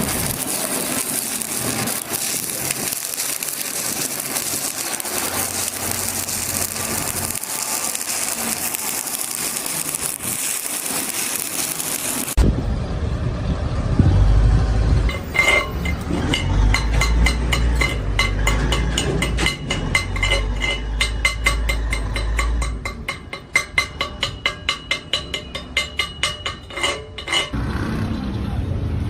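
Stick-welding arc crackling and hissing steadily for about twelve seconds. Then the sound changes abruptly to heavier noise, and a fast, regular run of sharp knocks follows for about twelve seconds.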